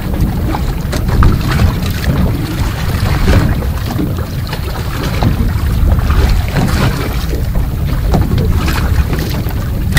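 Wind buffeting the microphone, with water lapping and slapping against the hull of a boat at sea; a steady low rumble broken by short, sharp slaps.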